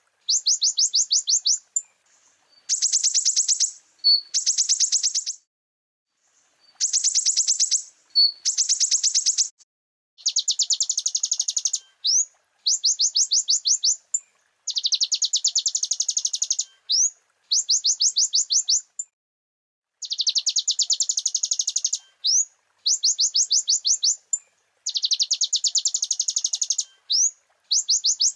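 A konin (a small sunbird kept as a songbird) singing in high, rapid trilled phrases of about a second each, repeated with short pauses, with quick upward-sweeping single notes between them.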